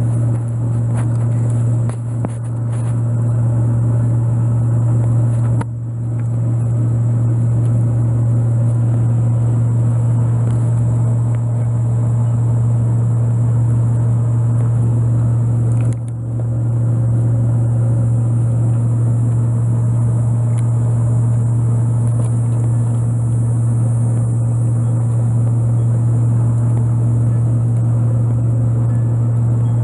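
A loud, steady low hum, like a machine running, with a few brief drops in level about 2, 6 and 16 seconds in.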